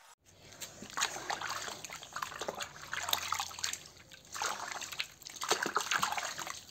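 Hands rubbing and sloshing in a plastic bowl of water, rinsing off wet plaster, in two spells with a short break in the middle.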